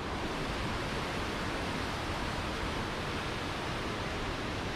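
Steady rushing noise of a cruise ship's churning wake water mixed with wind across the open stern deck.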